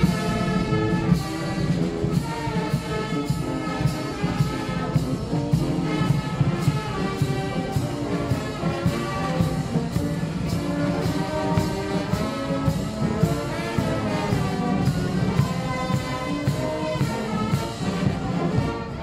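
Street carnival brass band playing, with trombones, trumpets and tuba over a steady beat.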